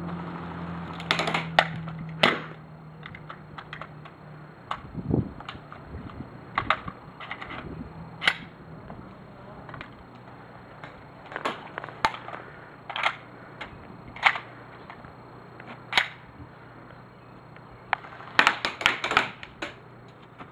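Airsoft guns firing single shots: sharp snaps spaced a second or more apart, then a quick string of shots near the end.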